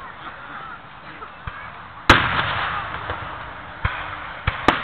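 Aerial fireworks shells bursting. A loud bang comes about two seconds in and trails off over about a second and a half, followed by three smaller bangs near the end.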